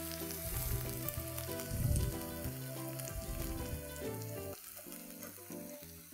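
Soya chunk (meal maker) pepper masala sizzling softly in a hot kadai with the stove just turned off, under quiet background music of held notes.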